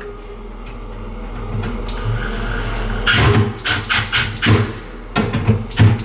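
A screwdriver driving the last screw into a cabinet door hinge: faint scraping at first, then from about halfway a run of irregular clicks and knocks as the screw is tightened and the metal hinge and door are worked.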